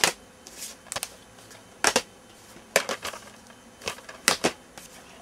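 Hard plastic DVD cases clacking as they are handled and swapped one for another, a sharp click about once a second, six in all.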